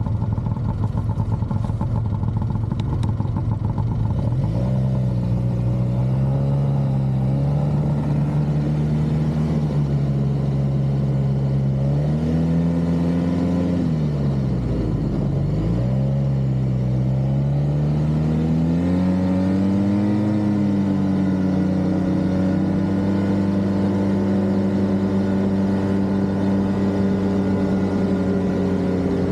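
Snowmobile engine under way on a groomed trail. Its pitch steps up about four seconds in, drops and comes back up briefly midway as it eases off, then climbs again and holds steady.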